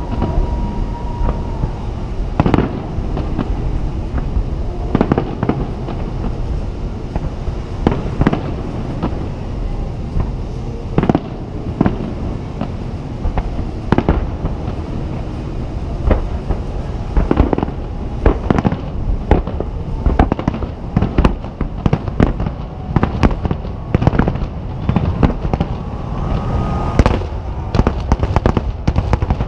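Aerial firework shells bursting, one sharp boom every two to three seconds over a steady low rumble. About halfway through they come much faster, in a rapid run of overlapping booms and crackles.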